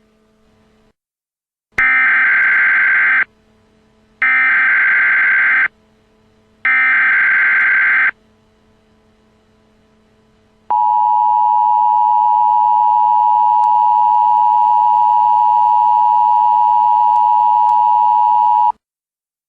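Emergency Alert System tones: three short bursts of SAME header data, each a buzzing digital warble about a second and a half long. A few seconds later comes the steady two-tone EAS attention signal (853 and 960 Hz), held for about eight seconds before it cuts off.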